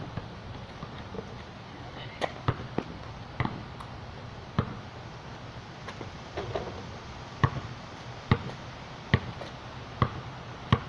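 Basketball bouncing on pavement: a few scattered bounces early, then steady dribbling at a little over one bounce a second in the second half.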